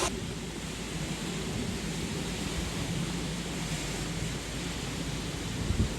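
Typhoon wind and heavy rain making a steady rushing noise, with a few low thumps near the end.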